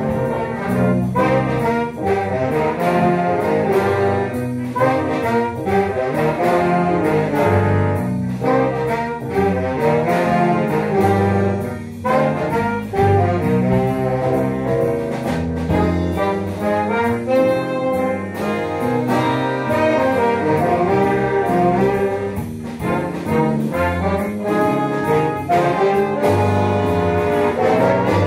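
Jazz big band playing in full ensemble: saxophone section and brass together, with sharp accented hits throughout.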